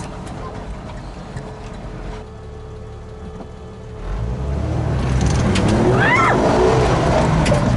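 Jeep Wrangler engine running off-road, growing much louder about four seconds in as it accelerates toward the puddles.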